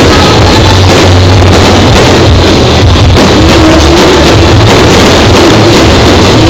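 Very loud music, recorded close to full scale, with no distinct separate bangs standing out.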